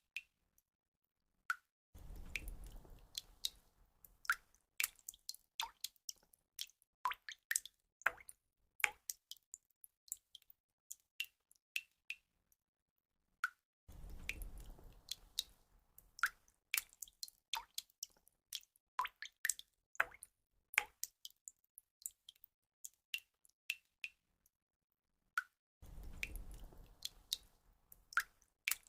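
Water drops falling and plopping one after another at an uneven pace, each a short pitched plink. Three times, about twelve seconds apart, a low rushing noise runs for about two seconds beneath the drops.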